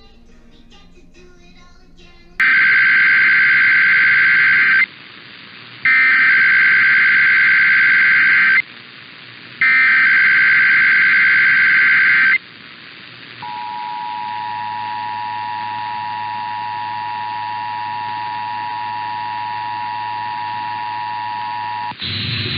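Emergency Alert System SAME header: three loud bursts of digital data tones, each about two and a half seconds long with a second's gap between them. Then the EAS two-tone attention signal (853 and 960 Hz together) holds steady for about eight seconds, opening a required monthly test alert.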